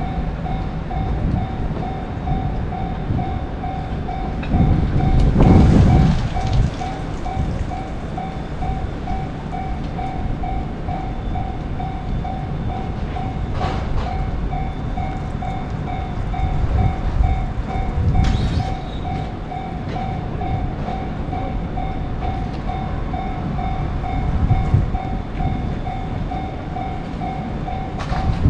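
Japanese railroad crossing alarm ringing its steady, repeated "kan-kan" tone while a train runs past with a rumble that swells loudest about five seconds in.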